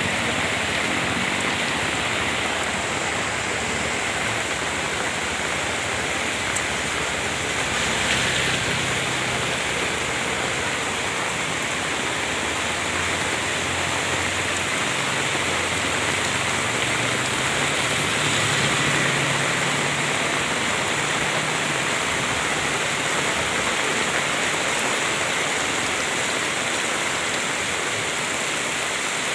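Steady rain falling, an even hiss with no breaks, with a low hum beneath it through the middle stretch.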